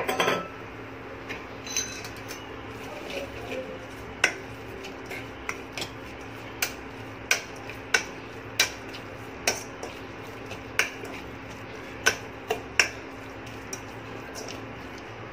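Metal spoon stirring in a stainless steel pot, clinking against the pot's sides, irregularly at first and then about every two-thirds of a second, over a low steady hum.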